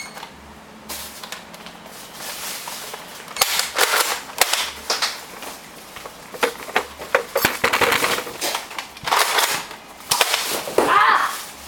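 Nerf foam-dart blasters being primed and fired: several clusters of sharp plastic clacks and pops, starting about three and a half seconds in and coming in spurts until near the end.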